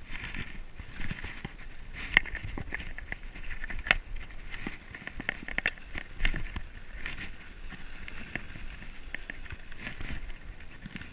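Mountain bike rolling downhill on a dirt singletrack: tyres on dirt and the bike rattling over bumps, with many small clicks and a few sharper knocks.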